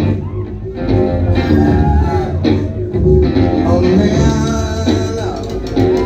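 Live band music: a heavy bass line with drums and other instruments over it.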